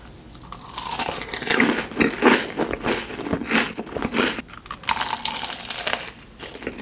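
Close-miked biting and chewing of crispy fried food: a dense run of crackling crunches starting about a second in, with a brief lull and then more crunching near the end.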